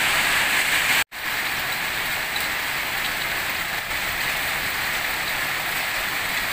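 Steady rain falling on the ground and surfaces, an even hiss. It cuts out for an instant about a second in, then carries on slightly quieter.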